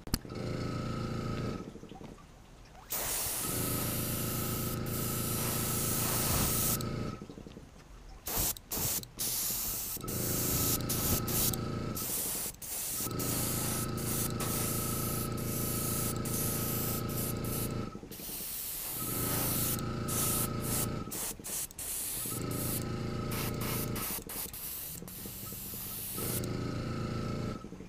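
Airbrush spraying paint in repeated bursts of a few seconds with short pauses between, a hiss over a steady hum and a faint whistle, laying a silver base coat on a lure.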